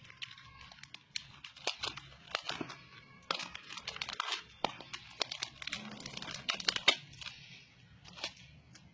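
Foil-lined plastic wrapper of a Patanjali biscuit packet crinkling and rustling in the hands as biscuits are pulled out, with irregular sharp clicks and crackles.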